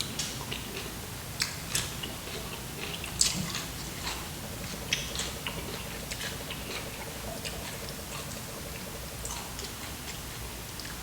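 A person chewing a sauced cucumber, with sharp crunches and clicks that come often in the first half and grow sparse later.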